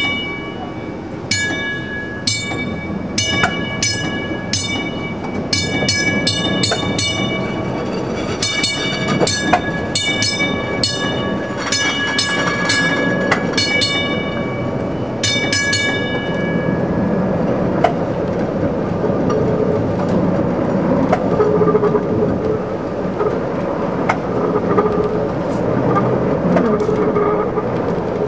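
MUNI PCC streetcar running along the track, with the rumble of wheels on rail. Over roughly the first fifteen seconds come many sharp ringing clangs in quick clusters; after that only the car's running noise remains.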